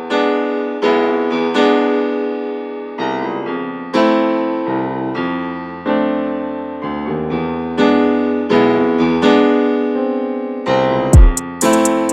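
Background piano music, a run of struck keyboard notes that ring and fade; near the end two heavy low thumps with crisp clicks come in.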